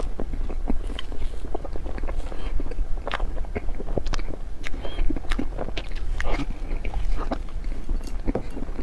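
Close-miked chewing of soft snow-skin mochi cream dessert (xue mei niang), heard as a dense run of short, irregular wet mouth clicks.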